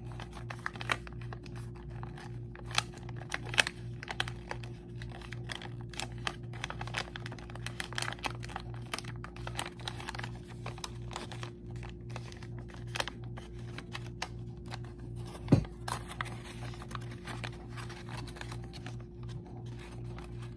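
Sheets of paper being folded and creased by hand: frequent small crinkles and clicks, with one sharper knock about three quarters of the way through, over a low, evenly repeating pulse in the background.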